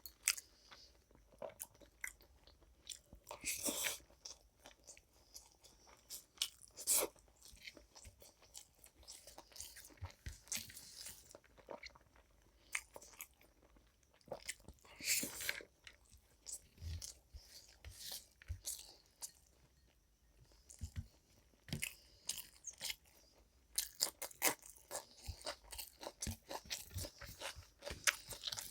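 A person eating close to the microphone: crunching bites and wet chewing in irregular bursts, with short pauses between mouthfuls.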